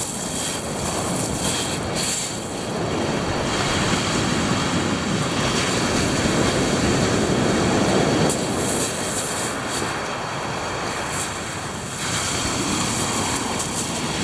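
Sea waves breaking and washing over a shingle beach, with wind buffeting the microphone; the surge builds to its loudest about eight seconds in, then eases.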